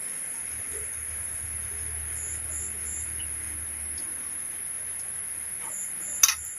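Steady high-pitched insect drone over the soft hiss of broth simmering in a wok, with a few short high chirps and one sharp knock near the end.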